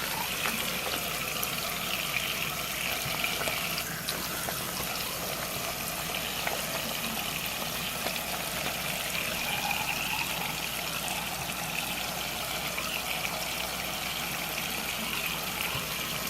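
Tap water running steadily into a sink while a bar of handmade soap is worked into a lather in wet hands.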